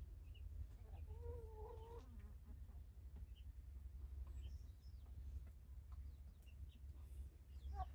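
Young hens vocalizing: one drawn-out, wavering call about a second in that drops away at its end, a shorter call near the end, and a few faint short chirps in between.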